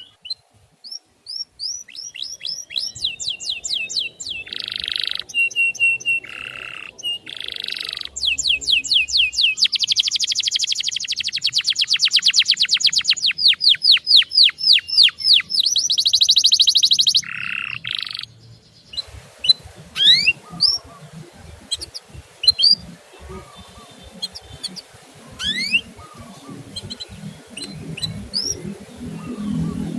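Canary song: fast runs of repeated, rising 'cuit-cuit' chirps and rolling trills. About two-thirds of the way through it changes to scattered single chirps over a low background noise.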